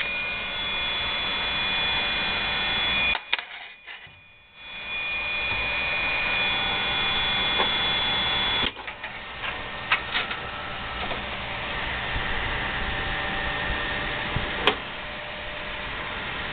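PC motherboard speaker buzzing steadily at POST over the hum of the running computer. The buzz cuts out about three seconds in, comes back over a second later, then stops just past the middle, leaving the steady hum and a few clicks. The buzz is the BIOS system-fan-fail warning, triggered because no system fan is plugged into the motherboard.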